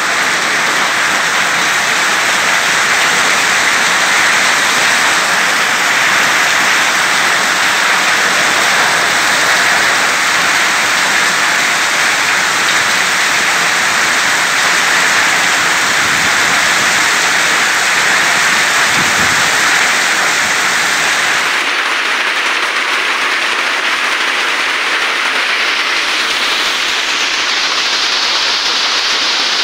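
Heavy rain and hail pelting down in a loud, steady, dense hiss. About three-quarters of the way through it shifts abruptly to a thinner, higher hiss.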